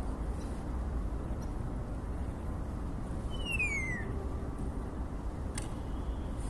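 A starling gives one falling whistle, a bit under a second long, about halfway through, over a steady low background rumble; a single short click comes near the end.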